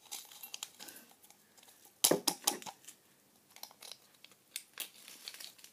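Small paper sachets of popping candy being crinkled and torn open by hand: irregular crackles and rustles, with a louder flurry about two seconds in.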